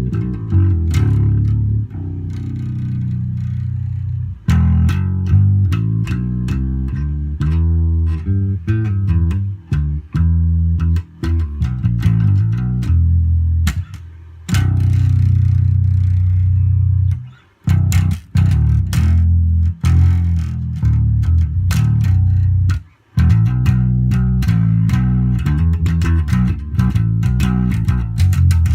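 Electric bass guitar played solo: a run of plucked notes and riffs with deep, full low end, broken by two brief stops in the second half.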